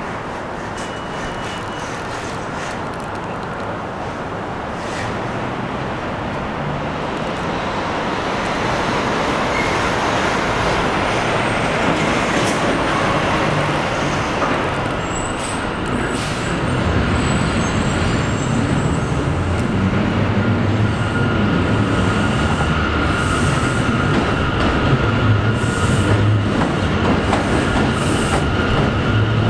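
New York City Subway R179 train running on the elevated steel structure and coming into a station. It rumbles, growing louder as it nears, and a steady high-pitched squeal or whine joins in over the second half.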